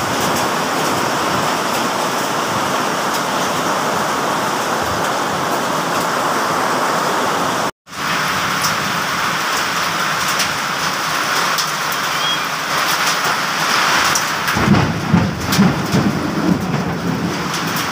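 Heavy rain pouring steadily in a storm, with scattered sharp ticks of drops striking hard surfaces. The sound cuts out briefly about eight seconds in, and a low, uneven rumble comes in about fifteen seconds in.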